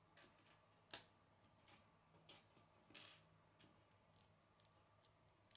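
Faint, scattered clicks and taps of plastic K'nex rods and connectors being handled and fitted together, about half a dozen in all, the loudest about a second in.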